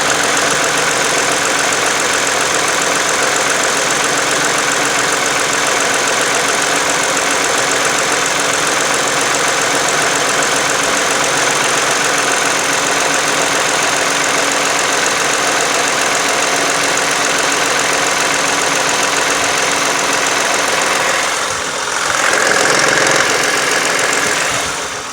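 2009 Toyota Sienna's 3.5-litre V6 running steadily with the funny engine noise its owner is recording. About 21 seconds in it dips briefly, then runs louder for a few seconds before falling away at the end.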